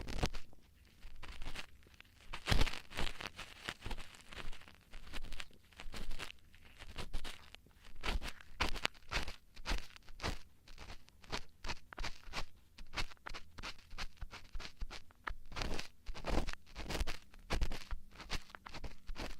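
Ear-cleaning tools scraping and crackling close against the microphone, dense irregular clicks and short scratches.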